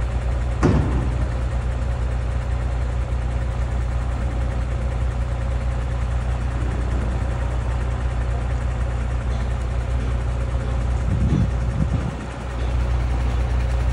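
Heavy machinery engine running steadily with an even low hum, with one sharp knock a little under a second in.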